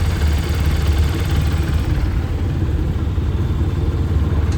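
TVS Apache RTR 160 4V's single-cylinder engine idling steadily, the timing chain noise gone now that a new timing chain is fitted.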